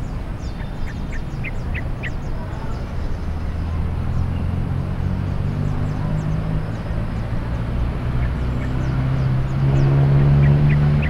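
Outdoor soundscape: the hum of a passing motor vehicle's engine builds and grows louder, loudest near the end, over a steady low rumble of traffic. Short bird chirps come about two seconds in and again near the end.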